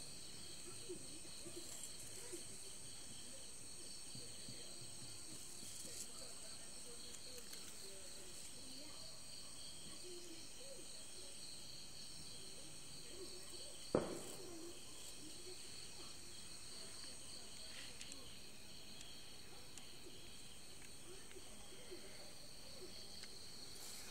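Insects trilling steadily in high, pulsing tones, with one sharp knock about halfway through.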